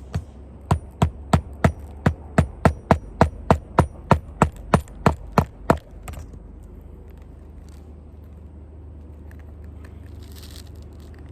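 Hammer striking nails into a shingle roof: a steady run of about eighteen sharp blows, roughly three a second, stopping about six seconds in.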